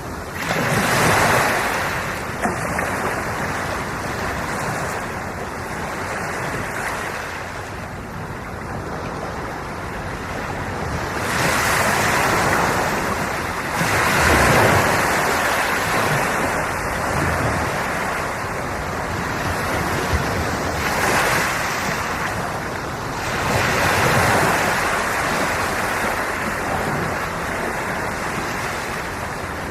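Sea waves breaking and washing onto the shore, a continuous rush that swells louder as each wave comes in and eases off again every several seconds.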